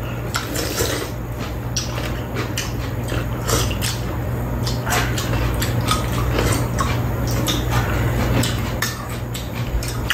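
Two people eating at close range: chewing and mouth sounds, with frequent short clicks of chopsticks and a spoon against bowls and a pan, over a steady low hum.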